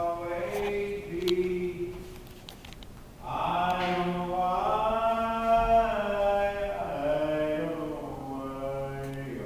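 Chant-like singing: long held vocal notes over a steady low drone, dipping quieter about two seconds in before swelling again.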